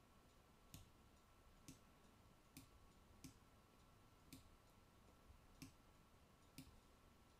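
Near silence with seven faint, sharp clicks about a second apart, made by working the computer's mouse and keys, over a faint steady hum.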